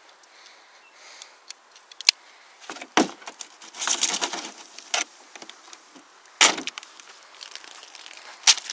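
Scattered clicks and knocks of an aluminium soda can being handled and stabbed with a hand tool on a plastic table. There is a short noisy burst about four seconds in and a sharp knock about six and a half seconds in.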